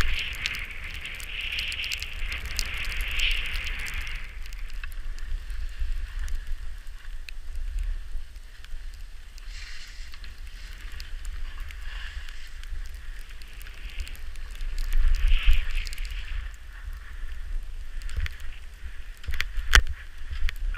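Skis hissing and scraping over packed snow, loudest in the first few seconds and again past the middle, over a low wind rumble on the camera microphone. A few sharp clicks near the end.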